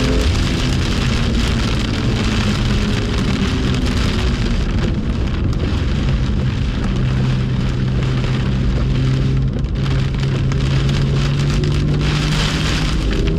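BMW M2's engine heard over a loud hiss of heavy rain and tyre spray on a wet track. The engine note falls early on, then holds one steady low drone from about halfway through.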